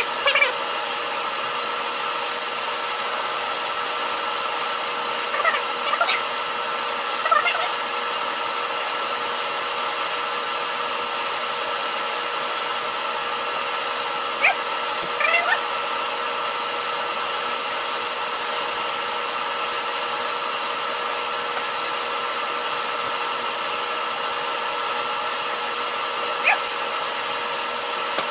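Hand sanding of a car's painted body panel with a sanding pad, heard as a hiss in stretches, over a steady machine hum with a few constant tones. A few short squeaks break in now and then.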